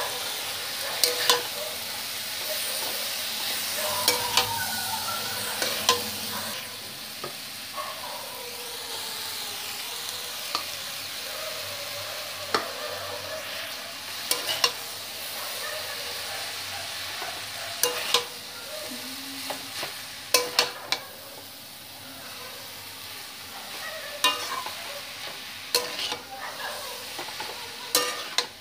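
Chowmein noodles and vegetables sizzling in a hot wok as they are stir-fried together. Sharp clacks of the stirring utensil against the wok come every second or two, sometimes several in quick succession.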